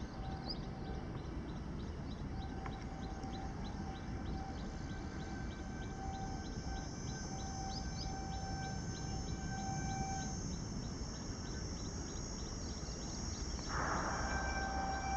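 The horn of the approaching Vande Bharat Express sounds from a distance, a steady tone in long blasts with short gaps, then comes in louder and unbroken near the end. Underneath are a low steady rumble and a rapid high ticking, about three times a second.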